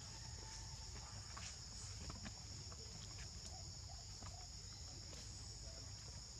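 Steady, high-pitched drone of insects, with faint scattered ticks and clicks.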